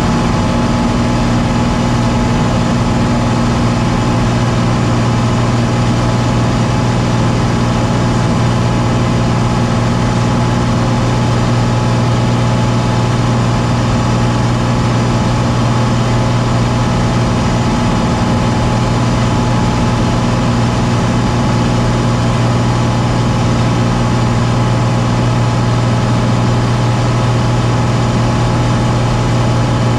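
Aircraft in flight: the engine drones steadily with a strong low hum, unchanging in pitch and loudness.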